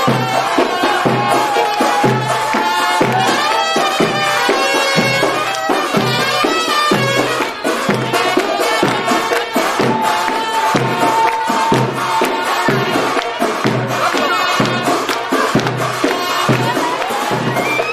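Egyptian folk music: a reedy wind-instrument melody held and wavering over a steady drum beat of about two strokes a second, with tambourine.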